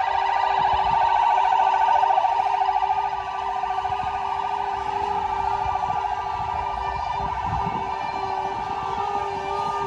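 Fire engine siren sounding with a fast warble, over a steady lower tone, a little louder for the first three seconds.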